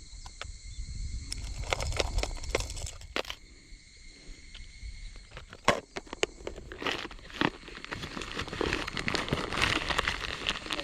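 Irregular crackling and rustling, with gusts of wind rumbling on the microphone for the first few seconds and again from about six seconds in.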